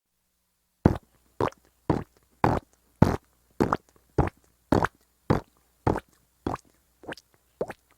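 Cartoon footsteps sound effect: a steady run of short, sharp steps, a little under two a second, starting about a second in after a silence.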